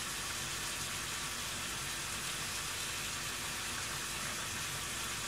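Garlic frying in olive oil in a pan, giving a steady, even sizzle.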